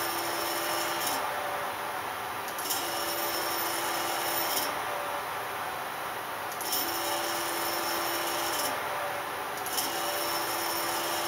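NEMA 23 stepper motor on a TB6560 driver, controlled by GRBL, jogging the Z axis in repeated moves. It gives four runs of a steady whine, each about two seconds long, with a pause of a second or two between them.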